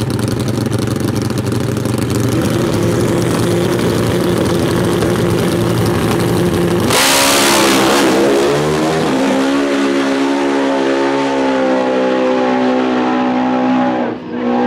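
Two Pro Open drag racing motorcycles held at high revs on the start line, then launching about seven seconds in with a sudden loud blast. After that the engine note dips and settles into a steady high pitch as they run hard down the track.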